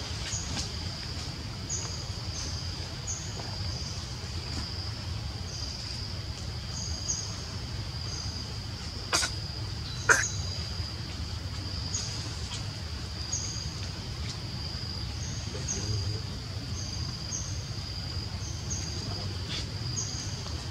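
Forest ambience: a steady high-pitched chorus with short chirps repeating about once a second over a low rumble, and two sharp clicks about nine and ten seconds in.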